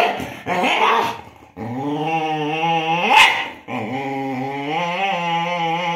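A dog growling in long, wavering, drawn-out growls, a play-threat display at another dog, with one sharp bark about three seconds in.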